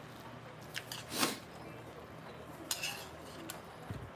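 Cutlery clinking against bowls and dishes during a meal: a few separate sharp clinks, one with a short scrape just over a second in.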